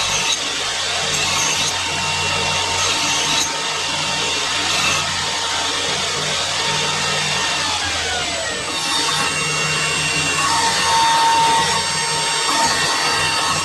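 Electric grinder running steadily as its abrasive works the surface of a forged steel axe head, grinding and polishing it to a finish.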